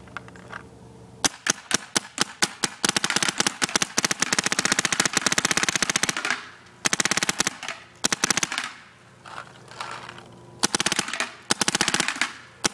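Empire Invert Mini paintball marker firing on semi-auto from a high-pressure air tank: rapid strings of sharp shots, many a second, broken by short pauses. The shots start about a second in, with longer strings in the middle and again near the end.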